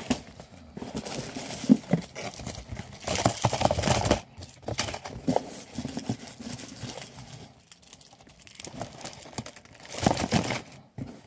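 Paperboard chocolate box being handled and its flap opened by hand: rustling and crinkling with small taps and scrapes, coming in irregular bursts, busiest about three seconds in and again near the end.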